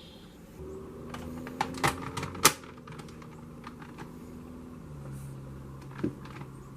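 A series of sharp, irregular clicks and clacks, the loudest about two and a half seconds in and another near the end, over a faint low hum.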